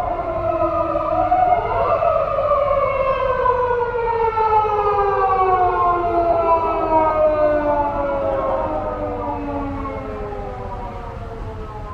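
Two Japanese police patrol car sirens wailing together, slightly out of step: a rise in pitch in the first two seconds, then a long, slow fall lasting about eight seconds, growing fainter near the end.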